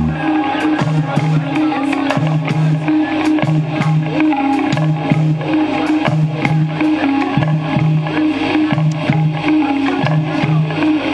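Live instrumental rock band playing: electric guitar, electric bass and drum kit, with the bass repeating a short two-note figure about once a second under steady drum hits.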